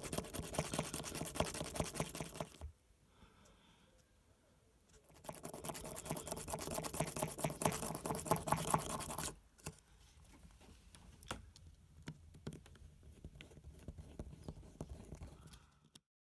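A small drill bit boring a hole through a thin disc, a dense scraping and grinding in two spells: the first in the opening seconds, the second from about five to nine seconds in. After that come lighter, scattered scratches and a few clicks as the disc is handled.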